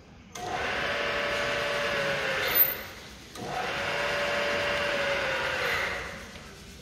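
Bridgeport-type vertical turret milling machine's spindle motor and belt head running with a steady whine, cut off a little over two seconds in with a sharp click and winding down. It is started again under a second later, runs for a few more seconds, then is switched off and winds down.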